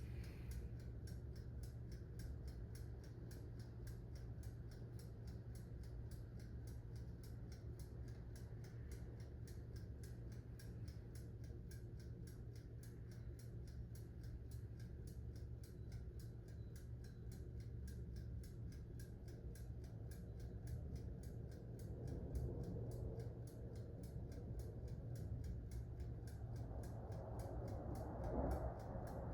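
Toaster oven's mechanical dial timer ticking steadily and rapidly as it counts down, over a low steady hum.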